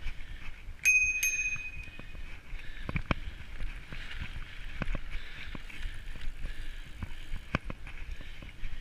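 Mountain bike riding fast over dirt singletrack: a steady rush of tyres and wind, with the bike knocking and rattling over bumps. About a second in, a handlebar bell is rung twice in quick succession and rings on briefly.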